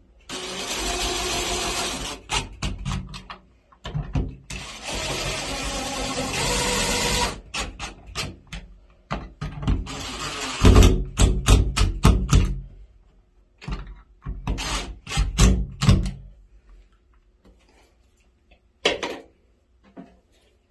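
Power screwdriver driving the screws that hold a shower faucet's trim plate. Two long runs of a few seconds each, then many short stop-start pulses as the screws seat.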